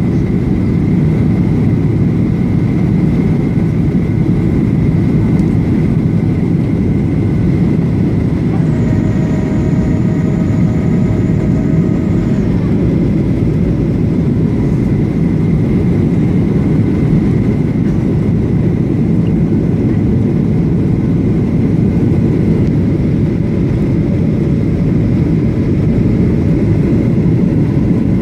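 Boeing 737-800 cabin noise during descent: a steady deep roar of engines and airflow with a thin steady whine above it. About nine seconds in, a higher multi-toned whine joins for about four seconds and then stops.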